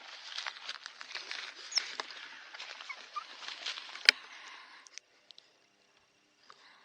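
Dry leaf litter crackling and rustling under movement, full of small clicks, with one sharp snap about four seconds in. It stops abruptly about five seconds in.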